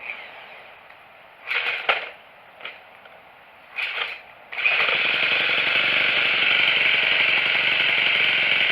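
Gas string trimmer being started with a 12-volt drill spinning a JumpStart bit: a few short bursts of cranking, then about halfway through the engine catches and runs steadily and loud.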